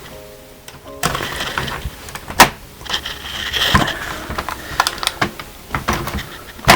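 Plastic clips of an Acer Aspire 5733 palm rest snapping loose one after another as a plastic pry tool works it off the bottom case. There is scraping of plastic on plastic in the middle, and a sharp snap near the end is the loudest.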